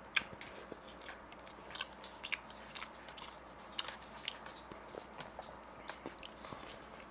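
Close-up eating sounds: a person chewing food, with a dozen or so short, sharp crunchy clicks from bites and mouth sounds scattered irregularly over a faint steady background.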